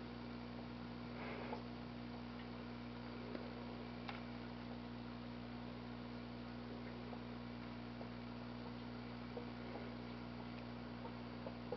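Steady low electrical hum, with a few faint ticks and taps scattered through it.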